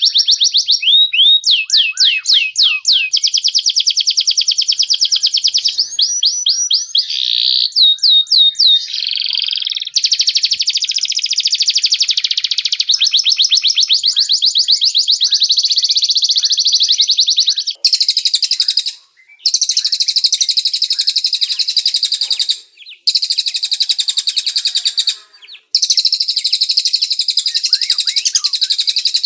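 Domestic canary singing: fast high trills and tours of rapidly repeated sweeping notes that change every second or two, then dense rolling trills in phrases a few seconds long with brief pauses between them.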